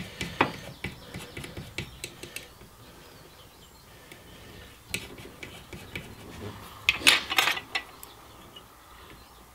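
Small clicks and scrapes of thread wraps on a fishing rod blank being pressed tight with a plastic packing tool to close the gaps, with a cluster of sharper clicks about seven seconds in.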